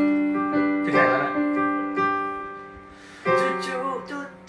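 Electronic keyboard playing piano chords, four chords struck about a second apart, each one ringing on and fading.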